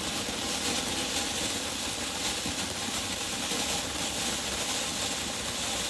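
KeyStone Fireworks Mega Monster Grand Finale fountain firework spraying sparks with a steady, loud hiss.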